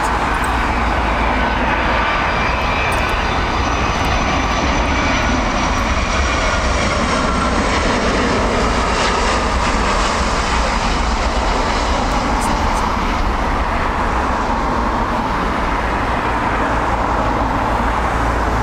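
Boeing 757 jet airliner on landing approach passing close by, its twin engines making a loud steady jet noise. High engine whines fall in pitch as it goes past about eight to ten seconds in.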